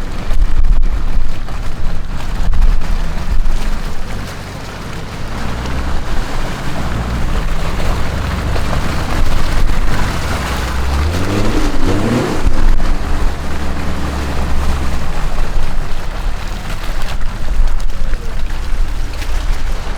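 Off-road 4x4's engine running under load with a steady rushing noise over it, revving up briefly about halfway through.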